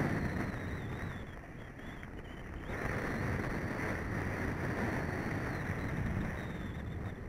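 Wind rushing over the camera microphone, with a snowboard's edge scraping over groomed snow during a fast downhill run. The rush eases about a second in and picks up again about three seconds in.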